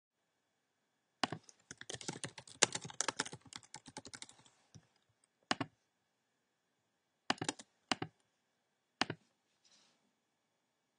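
Typing on a computer keyboard: a quick run of keystrokes lasting about three and a half seconds, followed by a few separate clicks spaced out over the next several seconds.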